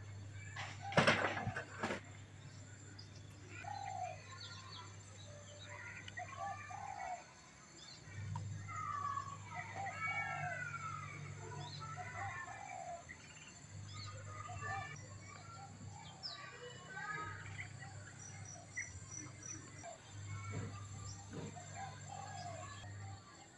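Birds calling: many short chirps and sliding calls throughout, with two sharp rustling bursts about one and two seconds in, over a low hum that comes and goes.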